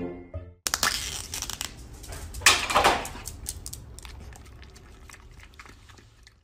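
Foil lid being peeled off a small plastic yogurt cup: crinkling and tearing with many small clicks, loudest about two and a half seconds in, then fading.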